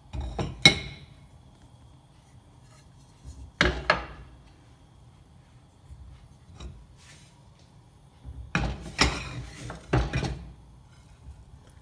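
Kitchen cookware and utensils knocking and clattering as they are handled: two knocks just after the start, one about four seconds in, and a cluster of three around nine to ten seconds in.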